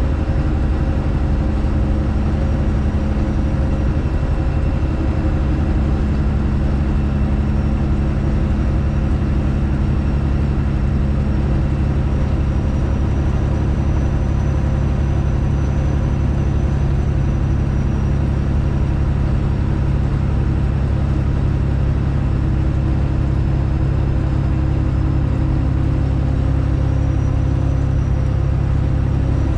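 Straight-piped Detroit Diesel Series 60 in a Freightliner Classic XL semi truck, running loud and steady at an even engine speed while driving.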